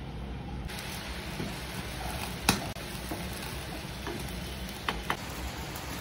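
Curry frying and sizzling in a pan as it is stirred. The sizzle comes in under a second in, and the spatula clicks sharply against the pan about two and a half seconds in and twice near the end.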